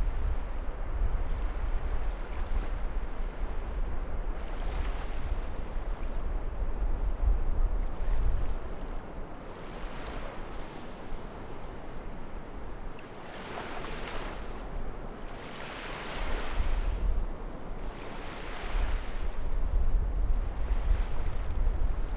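Waves washing in and breaking: a steady rush with several louder surges of hiss a few seconds apart, most strongly in the middle and latter part, over a low rumble that is heaviest at the start and end.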